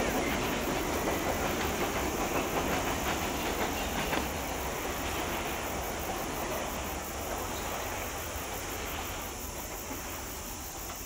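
Babaranjang coal train's hopper wagons rolling over the rails, a steady rumble with some clacking of the wheels, fading slowly as the wagons move away.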